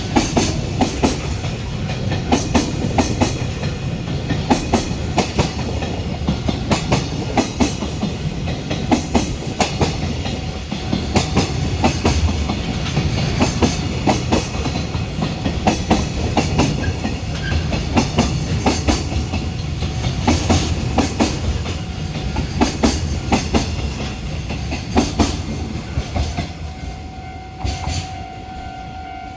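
Container freight wagons rolling past at speed, their wheels clicking rhythmically over rail joints above a steady low rumble. Near the end the train noise drops off as the last wagons pass, and a steady ringing tone comes through.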